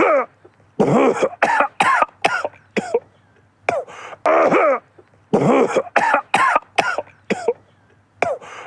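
A man coughing in repeated fits. Each fit is a quick run of several coughs, with pauses of about a second between fits.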